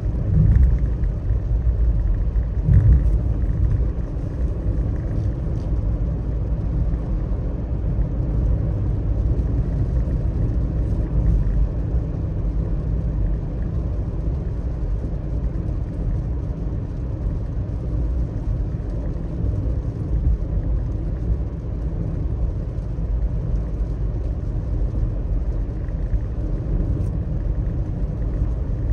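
Car driving on a wet road in the rain: a steady low rumble of road and tyre noise, with two brief louder thumps about half a second and three seconds in.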